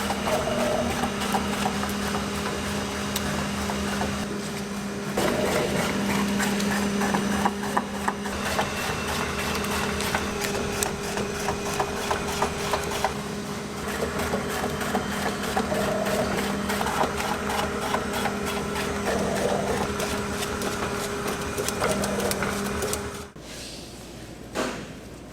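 Factory processing machinery running with a steady hum and a rapid clicking rattle, which cut off suddenly near the end; a single short clatter follows.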